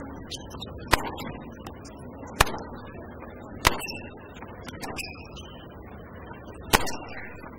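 Tennis ball struck by rackets in a point: five sharp pocks a second and a half or so apart. The one about two and a half seconds in is the serve.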